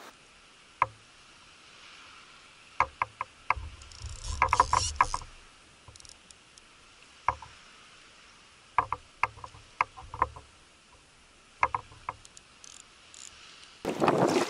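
Sharp clicks and knocks of fishing gear handled aboard a kayak, coming in small clusters with quiet between, some carrying a low thud. Wind and water noise rise just before the end.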